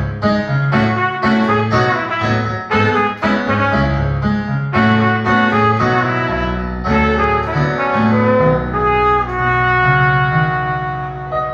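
Cornet playing a song melody over a backing accompaniment, a quick run of short notes followed by one long held note near the end.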